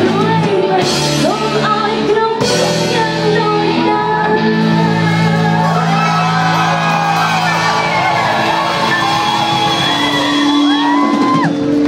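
Live band music with a woman singing a Khmer pop song, with some shouts over it, in a large reverberant hall.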